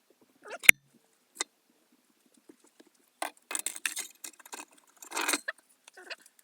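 Irregular scraping and scratching with clicks as crusted rust is knocked off an old steel clasp knife by hand. There is one sharp click about a second in, and a busy spell of scraping in the second half.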